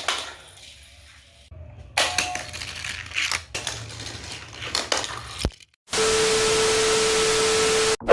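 Die-cast toy car and plastic track pieces clattering, with several sharp knocks over the first five and a half seconds. Then a loud, even hiss with one held tone for about two seconds, starting and stopping abruptly.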